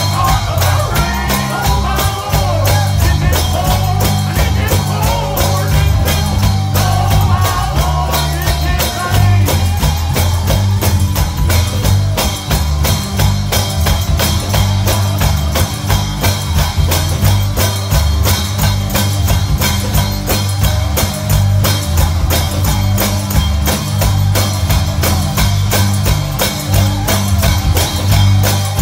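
Live gospel band playing an up-tempo instrumental passage: a heavy bass line under a steady fast beat of drums and tambourine, with a melody over it for the first third that then drops away.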